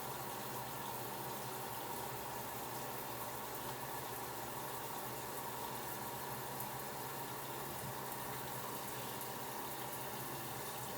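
Water running steadily from a tap turned down low, an unbroken even hiss.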